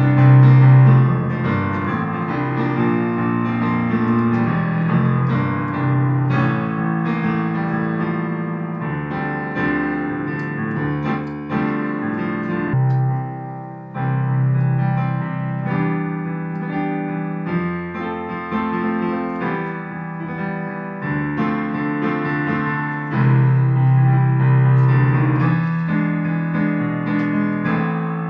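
Yamaha digital piano being played: chords under a melody of sustained notes, with a short break about halfway through before the playing picks up again.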